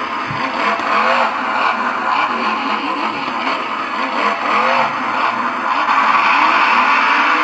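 Recorded monster-truck engine revving played from a toy's try-me sound demo, the pitch rising and falling over and over.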